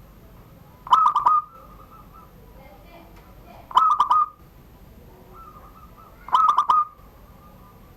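Zebra dove (perkutut) cooing in the 'surung gdor' song style: three short phrases of rapid staccato notes, one about every two and a half to three seconds.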